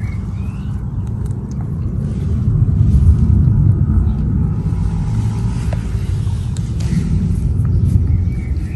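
Low, fluctuating rumble of wind buffeting the microphone, with a couple of short bird chirps at the start and again near the end.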